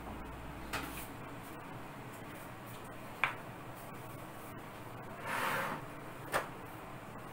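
Kitchen handling sounds: three light clicks and knocks of cookware and utensils being set out, with a brief sliding swish about five seconds in.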